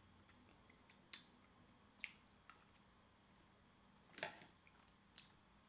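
Quiet eating sounds: soft, squishy chewing of a bite of cheesecake and five short clicks of a metal fork, the loudest about four seconds in.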